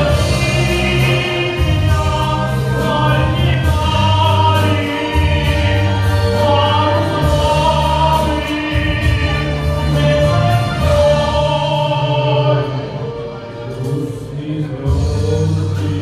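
Live amplified music heard in a club: singing with held notes over accompaniment with sustained bass notes, loud and continuous, easing off briefly near the end.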